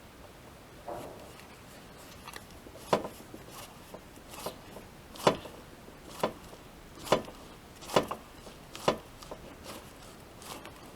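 A series of sharp knocks, about one a second, with the loudest in the middle.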